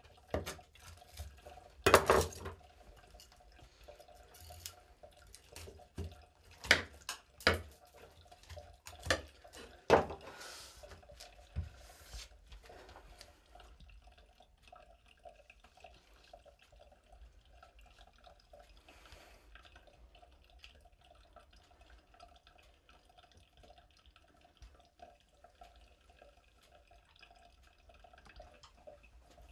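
Knife cutting up raw fish on a cutting board: a string of sharp, wet knocks over the first twelve seconds or so, then much quieter, with only small faint ticks.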